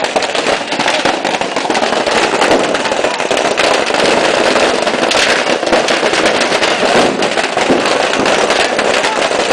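Firecrackers in a burning fireworks stall going off in a dense, continuous rapid crackle of pops, with no pause.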